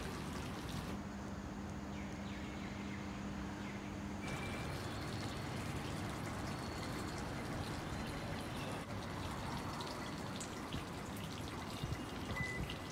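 Steady rain with dripping, a constant hiss of falling water. A few light knocks come near the end.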